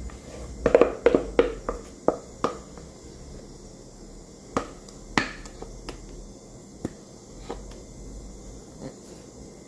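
A spatula scraping and knocking against a metal mixing bowl as whipped cream is scooped out of it: a quick run of knocks about a second in, then a few scattered single knocks.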